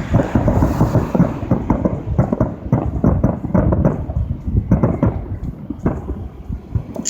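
Fireworks going off in quick succession: a dense run of bangs and crackles that thins to fewer, spaced bangs in the last few seconds.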